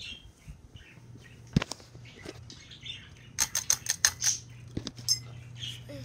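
Hunter Beacon Hill ceiling fan running with a low steady hum, under irregular clicks and rustling, with a quick cluster of clicks about three and a half seconds in.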